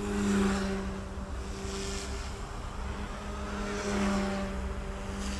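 Small electric RC helicopter (OMPHOBBY M2) with direct-drive brushless main and tail motors humming steadily in flight. It swells louder about half a second in and again about four seconds in, with wind noise on the microphone.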